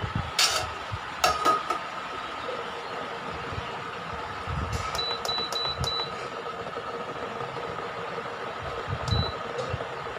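Induction cooktop running with a steady electrical hum, and a couple of clanks near the start. About five seconds in, four short high beeps as its control-panel buttons are pressed to lower the power setting, and one more beep near the end.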